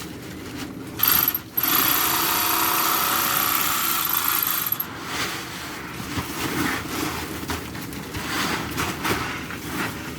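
Wheat being bagged: grain rushes and rattles through the bagging machine into a sack. It starts suddenly about a second in and stays loud until nearly five seconds, then drops to quieter, uneven rattling.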